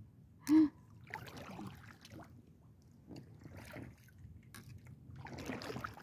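A brief gasp-like exclamation about half a second in, then soft water sounds of a kayak paddle dipping and dripping, a little louder near the end.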